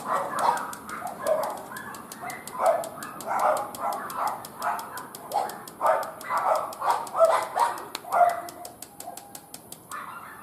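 A dog barking over and over, one or two barks a second, easing off over the last couple of seconds. Faint rapid clicking runs underneath.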